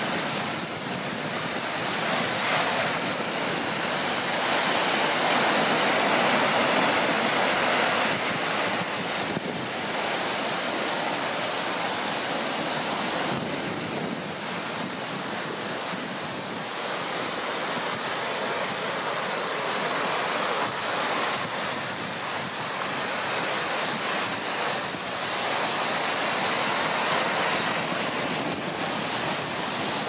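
Rough ocean surf breaking on a rocky shore and foaming over rocks and kelp: a continuous rush of churning water that swells louder as each wave breaks.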